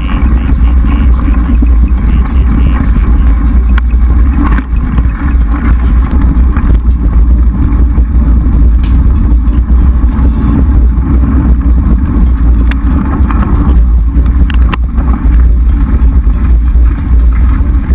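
Loud, steady low rumble of wind buffeting an action camera's microphone on a moving mountain bike, with scattered clicks and knocks from the bike rattling over a dirt trail.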